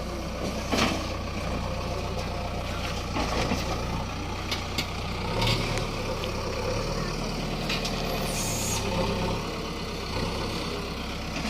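JCB 3DX backhoe loader's diesel engine running steadily, with a few sharp knocks and a short hiss about eight seconds in.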